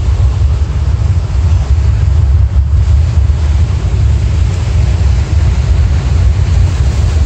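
Distant rumble of the Falcon Heavy rocket's 27 Merlin engines during ascent: a steady, deep, low rumble.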